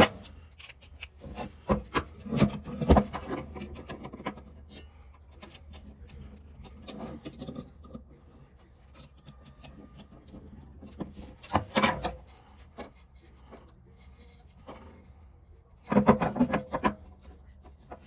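Irregular scraping and rubbing against wood, with sharp knocks, loudest in short bursts about two seconds in, around twelve seconds and near the end.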